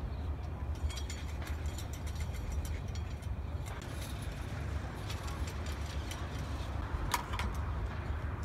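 Rope and pulley on a digging tripod turning as a bucket is hauled up out of a privy shaft: irregular clicks and rattles, a sharper cluster of them about seven seconds in, over a steady low rumble.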